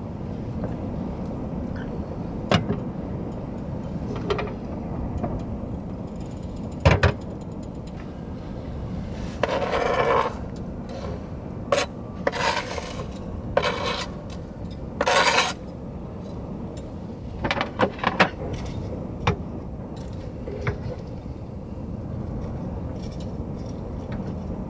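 Cooking utensils scraping and clinking against pots and pans: scattered clicks and a run of short scraping strokes through the middle, over a steady low background rumble.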